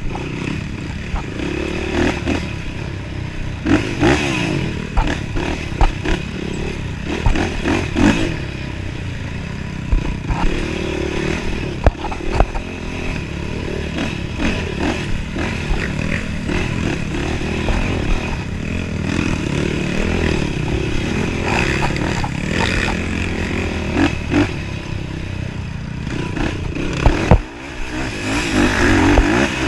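Race quad's engine heard from a camera on board, revving up and falling back repeatedly as it is ridden along a rough dirt trail, with frequent knocks and rattles as the machine bounces over ruts and roots. Near the end the engine drops off for a moment, then revs hard again.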